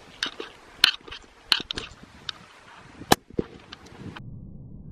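A run of sharp, irregular clicks and cracks, several of them loud, followed from about four seconds in by a low steady hum.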